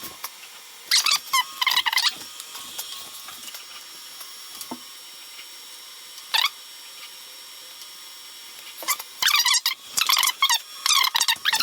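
3D printer stepper motors whining in short bursts of swooping high pitch as the axes move, about a second in, once mid-way, and twice near the end, over a steady fan hum.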